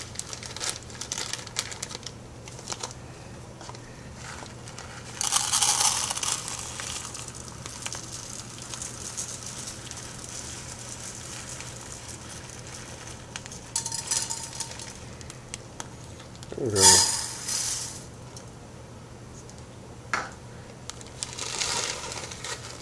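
Plastic bag of dry rice crinkling and uncooked rice grains pouring, in a few short rushes, into a measuring cup and a metal saucepan, with a light click near the end. A brief voice sound comes about three quarters of the way through.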